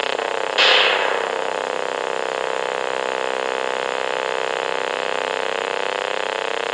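Steady droning hum with a rapid pulse and a sweeping, phasing quality, like a running motor, with a hissing crash about half a second in that fades away over about a second.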